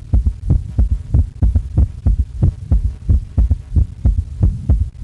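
Recorded heart sounds with an S3 gallop: low thuds of S1 and S2, each pair followed at once by an extra early-diastolic third sound, repeating steadily in a 'ta-ta-ta' rhythm. The S3 is the sign of blood rushing into a dilated ventricle in early diastole, most often in heart failure.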